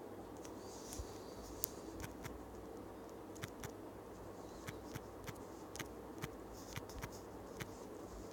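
Light, irregular clicks of typing on a smartphone's on-screen keyboard, about fifteen taps a fraction of a second to a second apart, over a steady faint hum.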